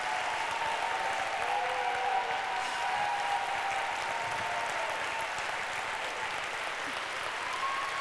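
Audience applauding, a steady wash of clapping.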